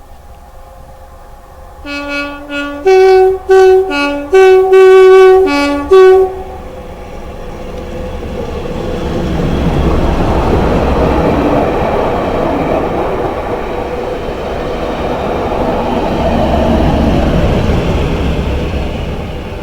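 Train horn sounding a rapid string of short blasts that switch between two notes, followed by the train passing through at speed, a rumbling rush that swells twice.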